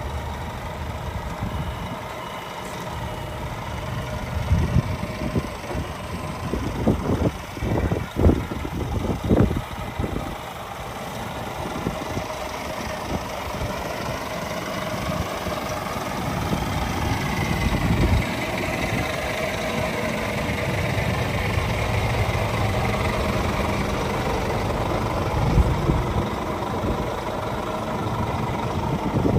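Scania truck's diesel engine running as the truck pulls slowly forward, with a few sharp loud knocks about a third of the way in. The engine pitch rises briefly past the middle as it pulls away.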